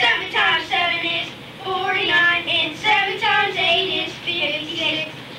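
Children singing a song, in short sung phrases with some held notes.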